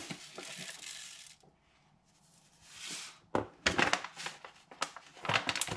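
Kitchen worktop handling sounds: a brief hissing rustle, a short pause, then a run of sharp knocks and clicks as containers and utensils are handled and set down, thickest near the end.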